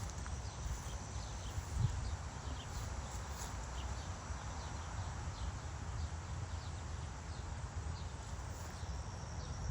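Outdoor garden ambience: scattered short bird chirps and a faint steady high insect trill over a low rumble, with one thump a little under two seconds in.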